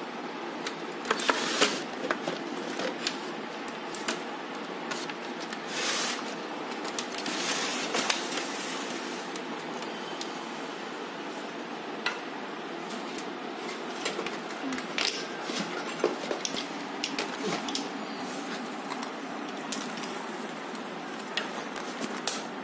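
Handling noises: scattered clicks, knocks and short rustles over a steady background hiss as a CRT television and its cables are moved about and set up.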